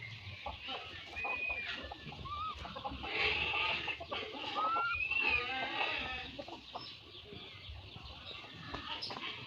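Animal calls: a few short squeaks rising or arching in pitch, among clucking and clicking sounds.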